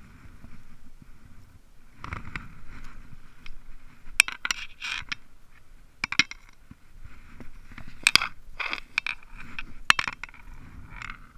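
Handling noise close to the camera: sharp clicks and scraping rubs as gear is moved about, with loud clicks about four seconds in, again near six seconds and in a cluster from about eight to ten seconds.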